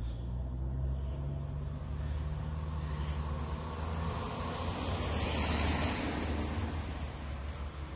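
A road vehicle going past: a low engine rumble with tyre and road noise that swells to a peak about five or six seconds in, then fades.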